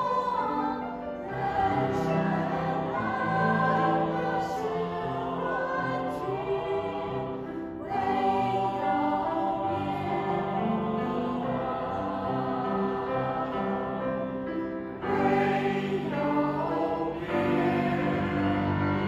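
Mixed choir of men and women singing together in sustained phrases, with short pauses between phrases about eight and fifteen seconds in.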